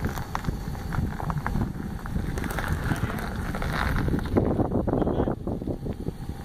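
Wind buffeting the microphone over a Ram 1500 pickup truck rolling slowly across a gravel road, with crackling throughout and a louder rush about four seconds in.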